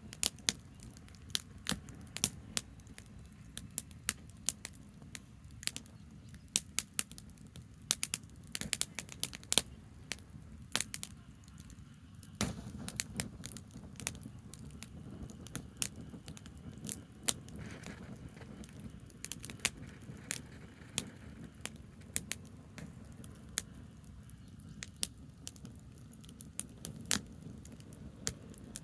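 Branch campfire crackling: irregular sharp pops and snaps of burning twigs, some loud, over a steady low rumble.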